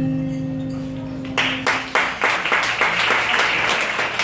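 Final acoustic guitar chord ringing out and fading, then audience applause breaking out about a second and a half in.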